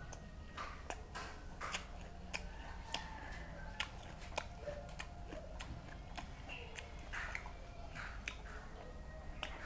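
A man chewing raw beef and fresh herbs with his mouth, giving irregular wet smacking and clicking sounds, over a low steady hum.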